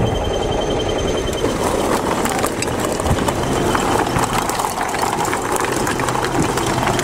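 Bulldozer's diesel engine running as its blade shoves a heap of broken stone forward. The rocks clatter and grind against each other, the clatter growing thicker from about a second and a half in.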